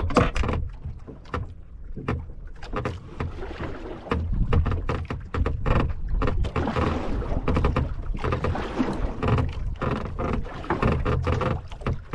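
Water lapping and slapping against the hull of a small wooden fishing boat, with scattered knocks and splashes as the boat rocks and the fisherman moves about inside it.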